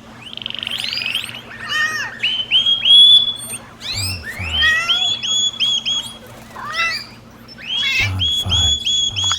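Pet bird chirping and whistling: runs of short, evenly repeated whistled notes with trills and glides between them, and a few low thuds.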